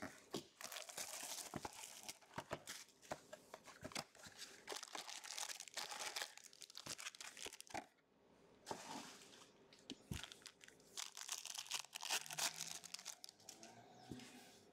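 Trading-card pack wrappers from a 2022-23 Panini Chronicles Basketball box being torn open and crinkled, in repeated irregular crackles with a short lull about eight seconds in.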